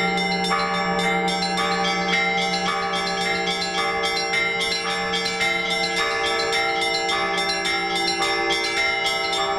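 Orthodox church bells rung together in a trezvon: quick, steady strokes on the small bells ringing over the sustained hum of a larger bell.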